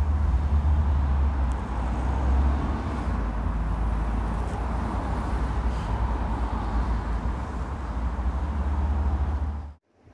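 Steady outdoor road traffic noise with a deep low rumble, cutting off suddenly near the end.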